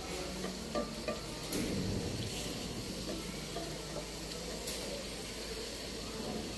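Onion-tomato masala sizzling in a pot on a gas stove, with a spatula stirring and scraping through it as eggs are lifted out, and a few light clicks of the spatula against the pot.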